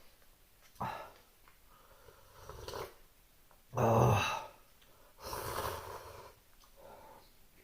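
Someone eating cup ramen: a few slurps and breathy exhales between mouthfuls, the loudest about four seconds in.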